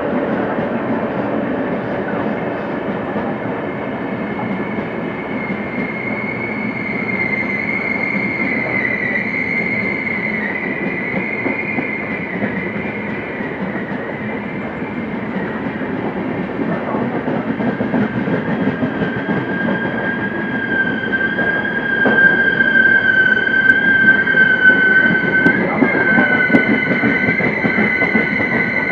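Indian Railways passenger train, the Chennai–Trivandrum Superfast Mail, rolling along the platform with a steady rumble of coaches. High squealing tones set in about six seconds in and are joined by two more from about two-thirds of the way through. At the same time the wheel knocks grow louder.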